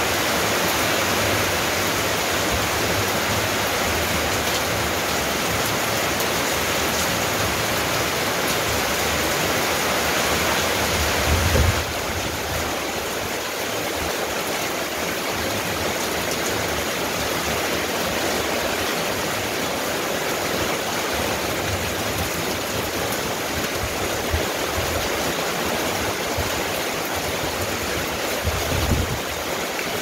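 Steady rain falling on a corrugated-metal roof and wet yard, a dense even hiss that eases slightly about twelve seconds in. A brief low bump comes just before that and another near the end.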